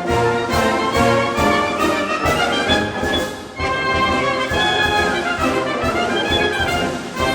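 Wind band playing a march, brass to the fore over a steady beat, with a short break in the phrase about three and a half seconds in.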